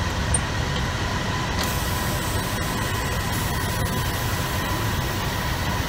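Semi truck's diesel engine idling steadily, a low rumble heard from inside the cab.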